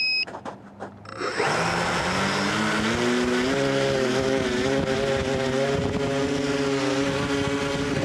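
Tricopter's brushless motors and propellers spinning up from about a second in, a buzzing whine that climbs in pitch and then holds steady with small wavers. A brief electronic beep sounds right at the start.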